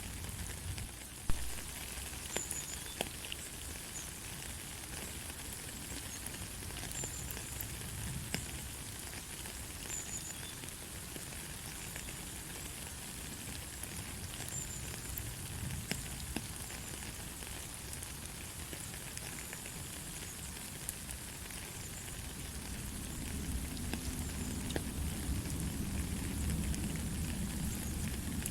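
Steady light rain hissing, with scattered sharp drips and ticks and one louder click about a second in. A deeper low rumble swells in over the last few seconds.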